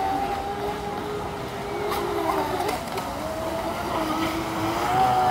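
Two radio-controlled speedboats running fast across a pond, their motors whining, with the pitch wavering up and down as the throttle changes.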